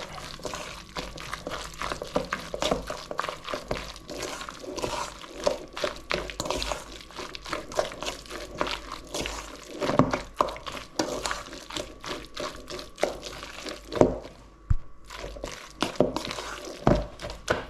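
Bhaji mix being stirred together in a bowl: wet squishing with dense irregular clicks and a few louder knocks.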